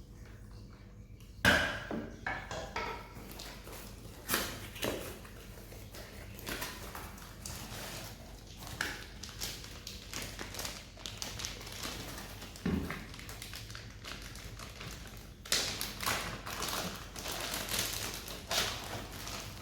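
Handling noises: a run of irregular clicks, taps and knocks, the loudest about a second and a half in, with a denser cluster of clicks near the end.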